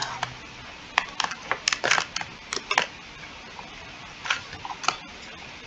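Computer keyboard keys clicking as a photo caption is typed, in an irregular run of taps and then a few more taps near the end.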